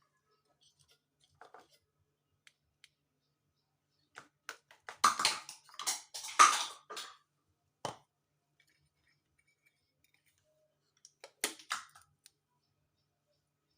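Kitchen handling noises while baking powder is measured out: scattered light clicks, then a burst of rustling, scraping and clinking of a container and measuring spoon about four seconds in, a sharp tap near the middle, and a shorter burst near the end.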